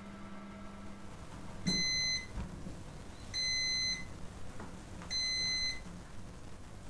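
A kitchen appliance's running hum cuts off about a second in, followed by three electronic end-of-cycle beeps, each about half a second long and evenly spaced. A low thud comes between the first two beeps.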